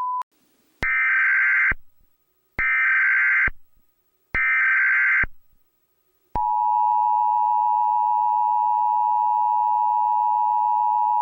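Emergency Alert System tones. Three short bursts of SAME header data, each just under a second with brief gaps, give a harsh buzzing warble. About six seconds in, the steady two-tone EAS attention signal (853 and 960 Hz) starts and keeps sounding. A steady single tone cuts off just at the very start.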